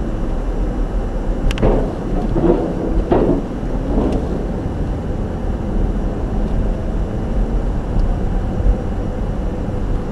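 Car's steady road noise and engine rumble while driving, with a few knocks between about one and a half and four seconds in.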